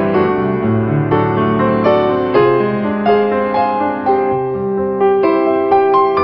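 Background piano music: a melody of struck notes following one another at an even pace.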